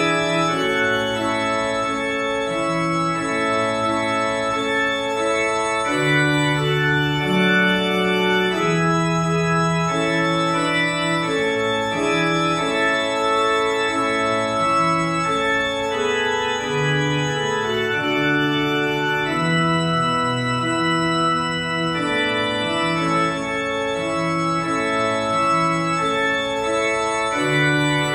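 Organ playing a hymn tune in held chords that change every second or so.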